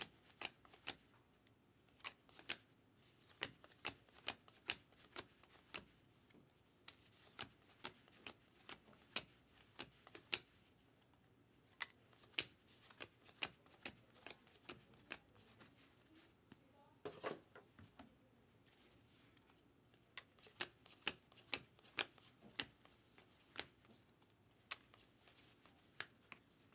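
Faint, irregular clicking and sliding of Topps Allen & Ginter baseball cards being flipped through one by one by hand, card stock against card stock, with a few short pauses.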